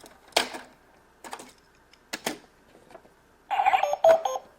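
Toy electronic cash register: plastic buttons clicking under presses about once a second, then a quick run of electronic beep tones about three and a half seconds in.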